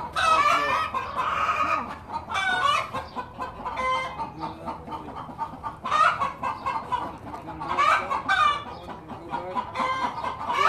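Chickens clucking, with loud calls repeating every second or two.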